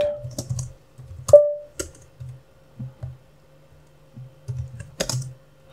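Typing on a computer keyboard: scattered keystrokes, with a few loud sharp clacks, some leaving a brief ringing tone, at the start, just over a second in and about five seconds in, and softer taps between.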